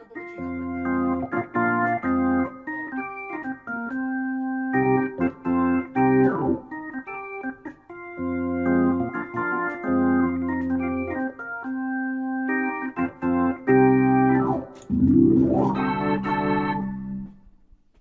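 A 1976 WLM Trip organ, a Finnish Hammond clone, played through an Allsound Leslie speaker cabinet. It plays held and detached chords, then a rising sweep about fifteen seconds in, and stops just before the end.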